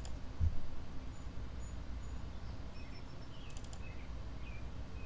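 Quiet room tone with a steady low hum, a soft thump about half a second in, and a few faint clicks a little past the middle.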